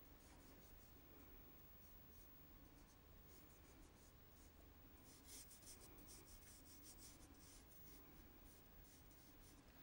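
Paintbrush stroking wet paint across paper: very faint, soft scratchy swishes that come thicker and faster from about halfway through, over a low steady room hum.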